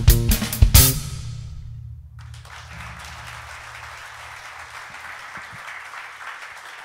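Drum kit and electric bass guitar finish a piece with a final accented hit under a second in, the bass note ringing out and fading. About two seconds in the audience starts applauding, and the applause continues.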